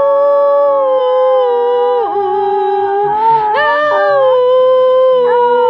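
Small dog howling along to television theme music: one long, unbroken howl that steps down and back up in pitch every second or two, with the music playing faintly underneath.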